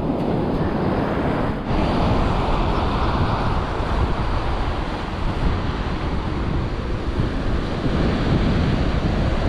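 Ocean surf breaking and washing up a sandy beach, heard as a steady rush, with wind buffeting the microphone and adding a low rumble.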